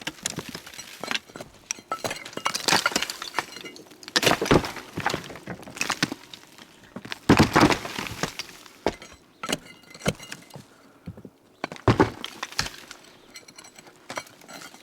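An old brick stove being broken apart with a crowbar: irregular knocks, scraping and the crash of bricks breaking loose and clattering down, with the heaviest crashes about 4, 7 and 12 seconds in.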